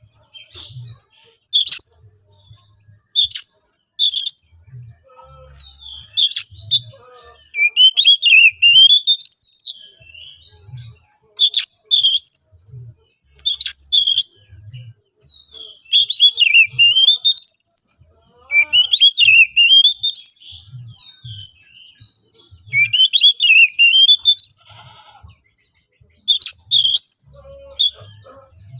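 Oriental magpie-robin (kacer) singing loud, varied phrases of sharp whistles and rising and falling sweeps, in bursts separated by short pauses. This is the fierce, fired-up song of a competition bird, used as a lure to provoke other magpie-robins into answering.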